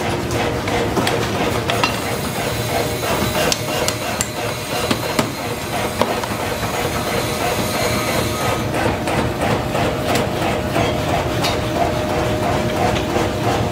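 Power forging hammer pounding a red-hot axe-head blank on its die in rapid, repeated blows, over the steady hum of the machine.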